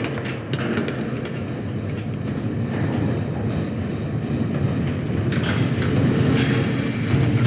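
Steady low mechanical rumble with scattered light clicks and knocks over it, and a couple of brief faint high tones near the end.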